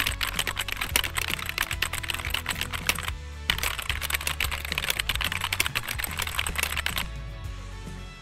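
Computer keyboard typing sound effect: rapid key clicks in two runs of about three seconds each, with a short pause between, over quiet background music.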